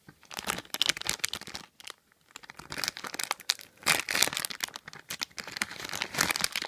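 Plastic blind-bag wrapper of a Topps Minikins pack crinkling as it is handled and torn open: about a second and a half of crackling, a short pause, then a longer run of crinkling.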